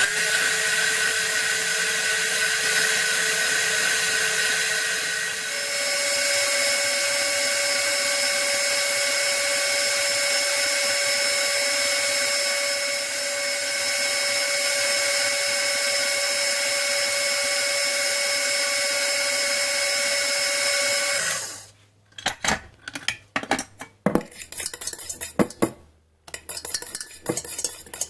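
KitchenAid stand mixer running with its wire whisk whipping heavy cream in the steel bowl: a loud steady motor whine that steps up in pitch once about five seconds in as the speed is raised. It stops about three quarters of the way through, followed by a run of clinks and knocks as the steel bowl and whisk are handled.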